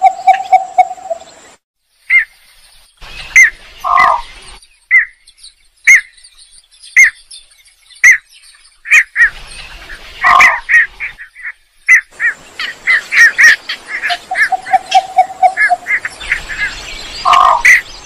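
Recorded lure calls of the belkok sawah, a rice-field bird. They are short, sharp call notes repeated singly and in quick runs, with a few louder, lower notes and, about three-quarters through, a run of evenly spaced low bubbling notes. The track cuts out abruptly for a moment near the start.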